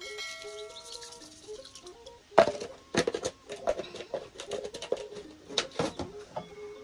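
Quiet background music with a simple melody of held notes, then from about two and a half seconds in a string of sharp clicks and taps: a plastic container and its snap-on lid being handled and closed after salt is added to a pot of water.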